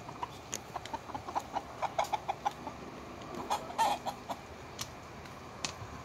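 Chickens clucking: a quick run of short clucks, about four or five a second, then a louder call about four seconds in.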